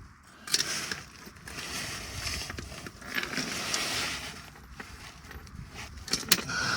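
Rustling and shuffling with a few sharp metal clicks as sockets are tried on the oil pan drain bolt.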